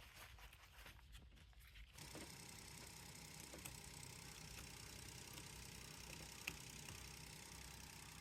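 Near silence: faint steady background noise that turns into an even hiss with a faint hum about two seconds in, with one soft tick later on.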